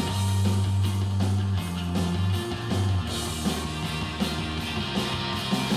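Rock music with electric guitar, held bass notes and a steady beat, played through a portable Bluetooth speaker and picked up by a recorder a few feet away.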